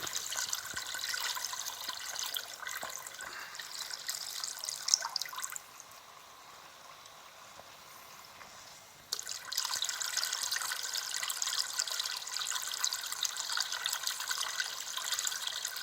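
Water splashing and trickling as a washing machine drain pump pushes it through a flushing rig, over a faint low hum. About five and a half seconds in the flow drops away, and about three and a half seconds later it comes back abruptly.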